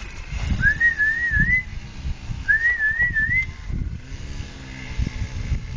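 A high whistle sounds twice, each about a second long, rising and then wavering up and down, over low rumbling noise.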